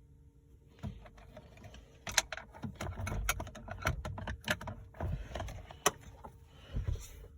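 A run of irregular clicks, taps and light rattles from objects being handled, starting about a second in and stopping shortly before the end, with a few sharper knocks among them.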